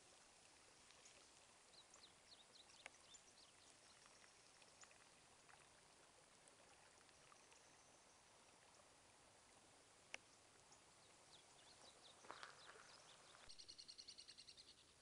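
Faint trickle of shallow rainwater runoff flowing over gravel and stones, with scattered short high chirps. A rapid high trill comes in near the end.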